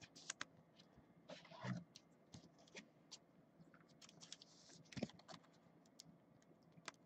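Mostly quiet, with faint scattered clicks and a few short scraping rustles of trading cards and rigid plastic card holders being handled and set down on a table.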